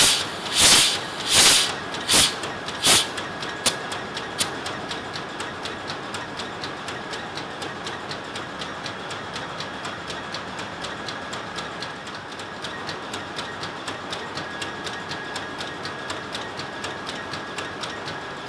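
Gas blows out of the open indicator cock of a running two-stroke marine diesel main engine in sharp hissing puffs, about one every 0.7 s, with each firing stroke of the cylinder as the line is purged. The puffs stop after about three seconds. The engine room's fast, regular ticking and steady hum carry on.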